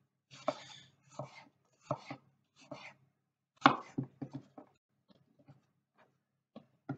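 Kitchen knife slicing apple on a wooden chopping board: a series of separate cuts, each a short crunch through the fruit ending in a knock on the board, with several quicker cuts about halfway through and a few faint taps near the end.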